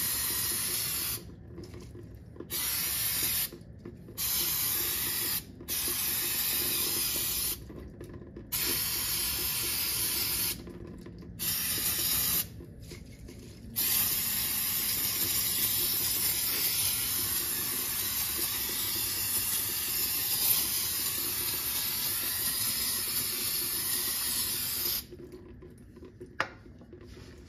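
Aerosol can of brake cleaner spraying, hissing, onto a drum brake's shoes and backing plate. There are several short sprays with brief pauses between them, then one long continuous spray of about eleven seconds that stops a couple of seconds before the end.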